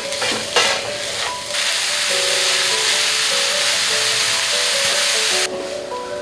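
A spatula scrapes a few times through grated coconut and jaggery in a nonstick pan. Then comes a steady, loud sizzling hiss as the mixture cooks on the stove, which cuts off suddenly near the end. Soft background music plays underneath.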